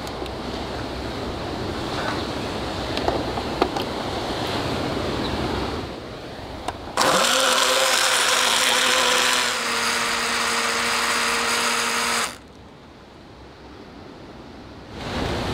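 Small plug-in personal blender running as it blends a fruit smoothie: its motor starts suddenly with a steady pitched hum, runs for about five seconds and stops abruptly.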